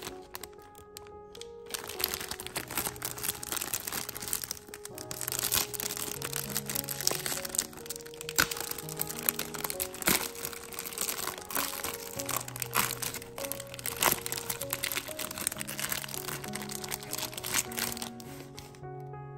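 Plastic wrapper of an Oreo cookie pack crinkling and crackling as it is torn open by hand, over background music with a simple melody.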